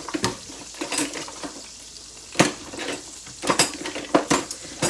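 Metal kitchen utensils clinking and knocking against a skillet and dishes: about seven sharp knocks spread unevenly over a few seconds, the loudest about two and a half seconds in.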